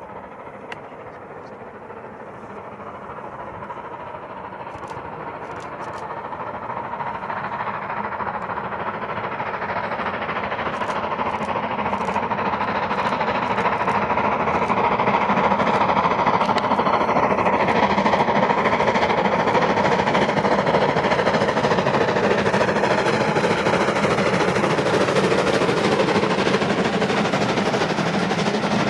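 Steam locomotive working hard, its rapid exhaust beats growing steadily louder as it approaches, then running loud and close as the train passes with its coaches rolling by near the end.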